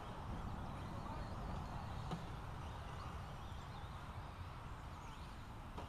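Radio-controlled buggies and stadium trucks racing on a dirt track, their motors a faint high whine that rises and falls with throttle over a steady low rumble. A single click comes about two seconds in.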